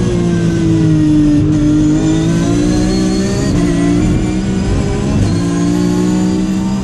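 Porsche 911 GT3 Cup race car's flat-six engine at racing speed, heard from inside the stripped cockpit. The engine note sags about a second and a half in, then climbs again and holds high, with a few brief changes in pitch.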